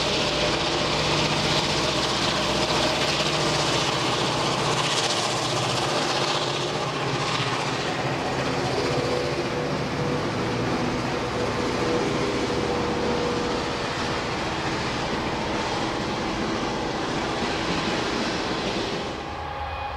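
Diesel locomotives running past, a steady mix of engine noise and wheel and rail sound.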